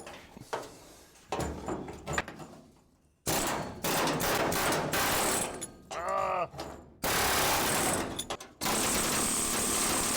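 A few light metal knocks, then a power tool run hard in three long bursts against the truck's sheet steel, cutting out the spot welds that hold the rocker panel to the cab floor.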